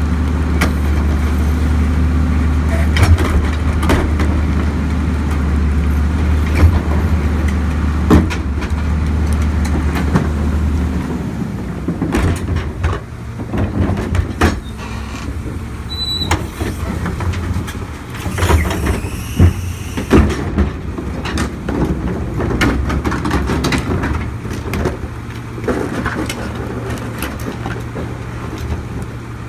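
Crane Carrier garbage truck's diesel engine running at raised revs while the hydraulic cart tipper dumps a cart into the Leach rear-loader hopper, then dropping back to idle about a third of the way through. Plastic carts bang and thud against the hopper again and again as they are emptied.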